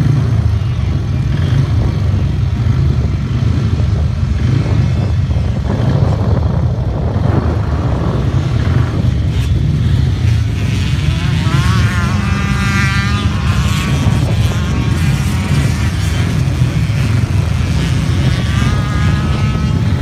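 Off-road motorcycles racing on a grass track over a steady low rumble. About halfway through, a bike's engine revs up and down as it passes close. Another engine's whine rises near the end.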